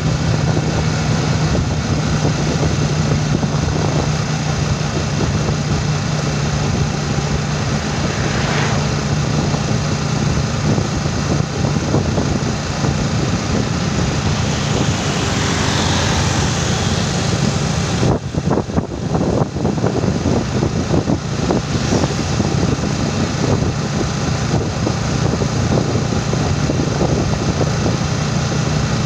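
Motorcycle engine running steadily while riding along a road, with wind and tyre noise. Another vehicle swells past a little past the middle, followed by a few seconds of rough buffeting.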